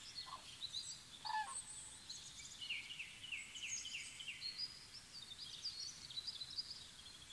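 Woodland songbirds singing: many quick high chirps and trills, some falling in short steps. Two faint lower calls stand out in the first second and a half.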